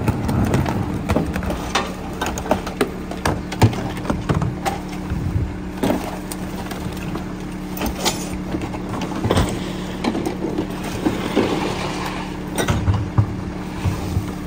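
Rear-loader garbage truck idling with a steady hum while trash bags are thrown and plastic carts are tipped and banged against the hopper, giving frequent sharp knocks and thuds.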